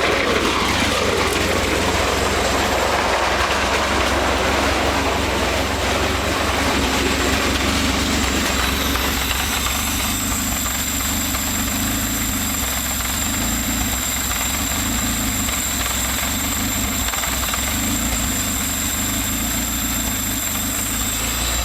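Honda B20VTEC four-cylinder engine idling with no exhaust fitted, running loud and raw. The revs fall over the first second or so and then settle into a steady idle of about 900 rpm. A high steady whine joins about halfway through.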